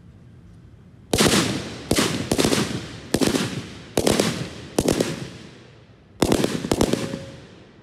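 Rifle shots from officers firing while lying on the ground: about eight sharp reports at uneven intervals, each followed by an echoing tail.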